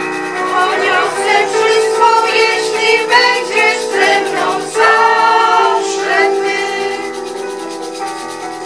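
Mixed group of men and women singing together, with long steady notes held underneath the voices. The singing is loudest in the middle and falls away near the end.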